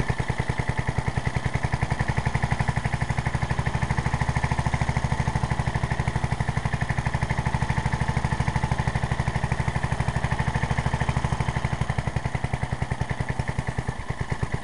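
The 1982 7-horsepower engine of a JCPenney riding lawn mower idling low and evenly just after a cold start, a fast, steady run of firing pulses. It idles that low because it is still cold.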